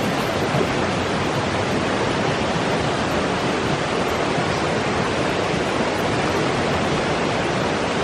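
Steady, even rushing of a river's current.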